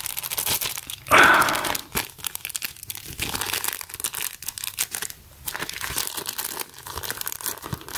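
Clear plastic packaging bags crinkling and rustling as they are handled, with a louder rustle about a second in.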